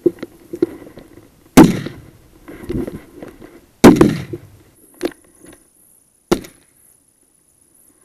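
Two loud shotgun shots about two seconds apart, each trailing off briefly, followed by two shorter, quieter sharp cracks.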